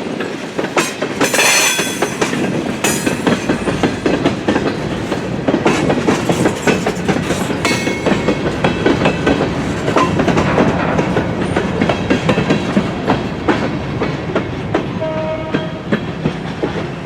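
Train cars rolling past over a grade crossing, their wheels clicking in a steady rhythm over rail joints, with a brief higher-pitched screech about a second and a half in.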